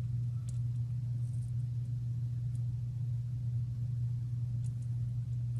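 A steady low hum, with a few faint small clicks over it.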